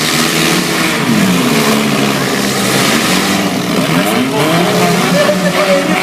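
Several four-cylinder demolition derby car engines running and revving at once, their pitches rising and falling over one another, over a steady noisy din.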